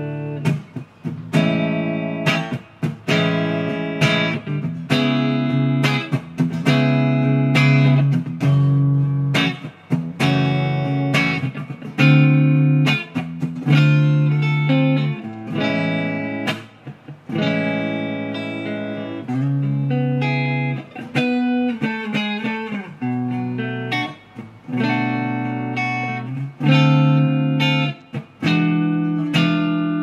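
Junior by K-Van L200 electric guitar on its bridge pickup, played through an amp: chords and riffs in short phrases with frequent brief stops.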